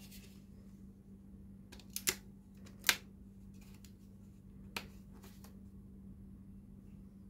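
Sharp plastic clicks from a bootleg CSM Ride Booker toy being handled and folded: two clicks about two and three seconds in, the second the loudest, then a smaller click near five seconds and a few faint ones, over a steady low hum.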